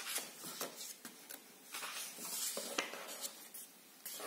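Pages of a hardcover picture book being turned and pressed flat by hand: soft paper rustles broken by a few short, light clicks.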